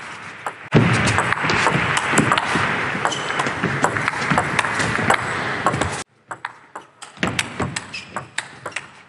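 Celluloid-style table tennis ball struck back and forth in a fast rally: sharp clicks of ball on rubber-faced bats and on the table. A loud, steady rush of noise comes in under a second in and cuts off abruptly around six seconds, after which the ball clicks carry on.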